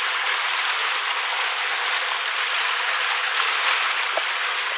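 Floodwater rushing past: a steady, even rush of water, heard through a police body camera's microphone.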